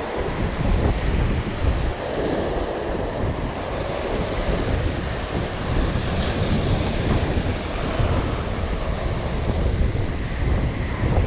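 Small sea waves breaking and foaming up a pebble shore, surging every second or two, with wind buffeting the microphone.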